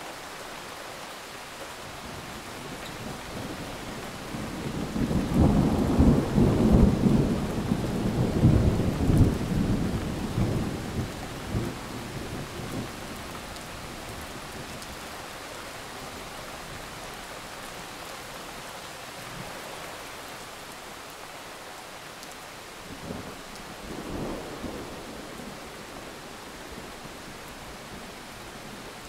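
Steady rain falling on plants, with a long roll of thunder that builds from about four seconds in, stays strong for several seconds and fades out; a second, weaker rumble of thunder comes near the end.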